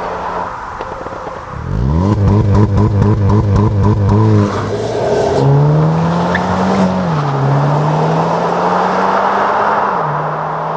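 Hyundai Kona N's 2.0-litre turbocharged four-cylinder engine and exhaust. The revs rise quickly and are held steady for about two seconds with a rapid stuttering pulse. The engine then accelerates hard, its note climbing and dropping at two upshifts of the 8-speed dual-clutch gearbox before settling at a steady cruise.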